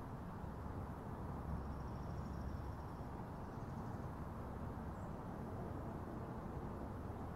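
Steady low rumbling outdoor background noise in a grassy meadow, with a faint, thin, high tone drawn out for a second or two about a second and a half in and a shorter one soon after.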